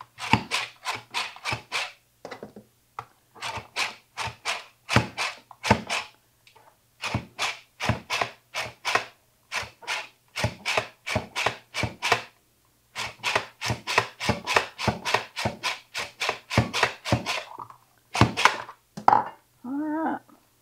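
Button mushrooms being sliced in a hand-operated vertical slicer: quick strokes, about four a second, in runs of a few seconds with short pauses between.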